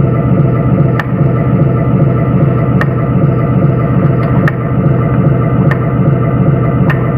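Arduino-based RC engine sound simulator playing a steady engine idle sound through a speaker, with five sharp clicks spread through it.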